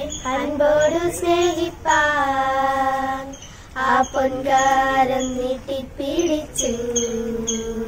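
Three girls singing a song together, their voices holding several long notes.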